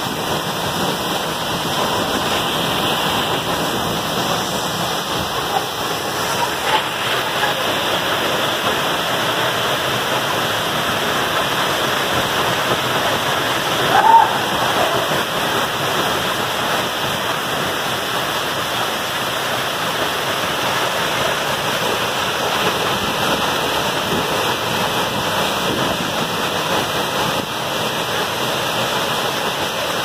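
Waterfall plunging into a rock pool: a steady, loud rush of falling water. One brief, louder sound stands out about halfway through.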